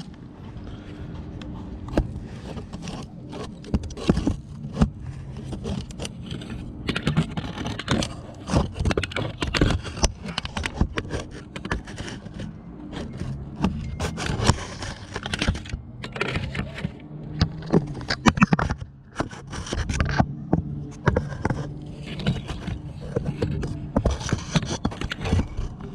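Hand tools and metal parts clinking, knocking and scraping in an irregular run of clicks and scrapes, the sound of parts being worked off a diesel engine by hand.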